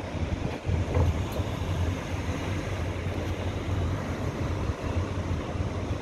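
Wind buffeting the microphone on the open deck of a moving cruise boat, over the boat's engine and the rush of the sea.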